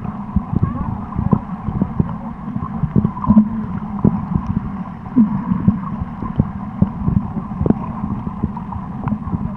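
Underwater sound through a camera held below the surface: dull, muffled water noise with frequent irregular clicks and knocks.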